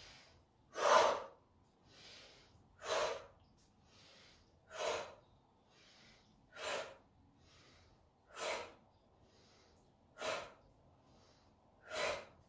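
A woman breathing forcefully in time with a repeated exercise movement: a soft inhale, then a louder, sharp exhale, about once every two seconds, seven exhales in all.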